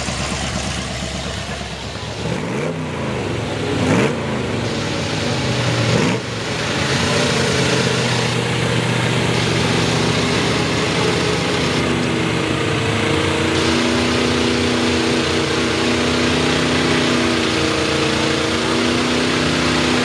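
Chevy square-body mud truck's V8 on open headers revving hard. The revs sweep up a few times in the first six seconds, then hold high and steady as the truck plows through the mud pit on its mud tyres.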